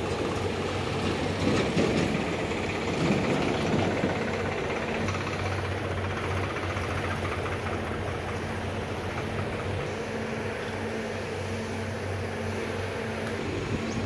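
An engine running steadily, a low constant hum with a rough rumble over it, somewhat louder for the first few seconds.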